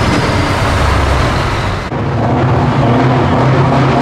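Scania V8 truck engines running loud through open exhaust pipes. About two seconds in, the sound cuts abruptly to another Scania V8 truck driving through a tunnel.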